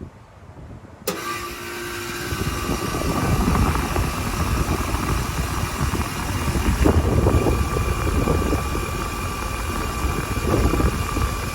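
1989 Carrier TECH 2000 3-ton heat pump starting up in cool mode: it kicks on with a click about a second in, builds over a couple of seconds and settles into a steady running rumble with a steady whine. The Carlyle reciprocating compressor does not sound healthy, in the owner's words, though the unit cools well.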